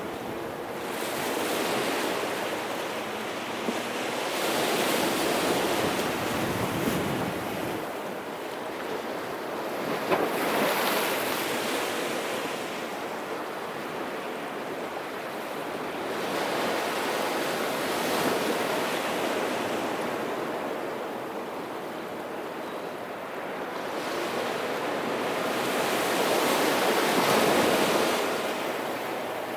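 Sea waves breaking and washing on the shore, the surf rising and falling in slow surges every few seconds, with some wind noise on the microphone.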